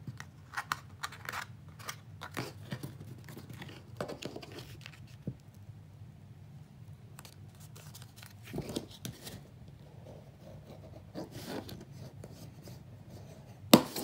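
Stiff kraft cardstock being handled, folded and pressed flat by hand on a work mat: scattered rustles, scrapes and light taps of paper, with one sharp tap just before the end.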